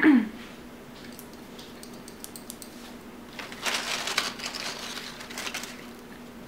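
A short falling hum of a voice right at the start, a few light ticks, then about two seconds of crinkling from the paper-lined takeout container and its wrapping as a piece of food is picked out of it.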